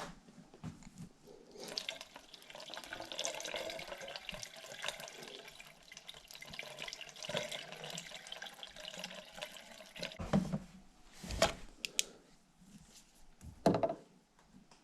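Water being flushed through a clogged HVAC condensate drain line and trap, rushing and splashing for several seconds as the line is cleared. Three sharp knocks follow near the end.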